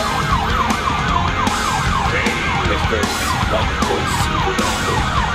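Ambulance siren on a fast yelp, heard from inside the ambulance: quickly repeating falling sweeps, about four a second, over a steady low rumble.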